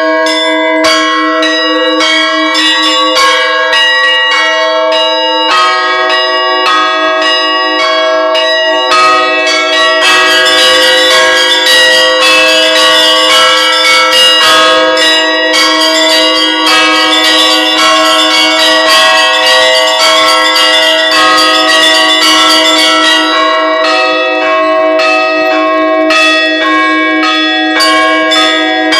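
Bells ringing in a rapid, continuous peal of many overlapping strikes, each tone ringing on. The ringing grows busier about a third of the way in and thins again near the end.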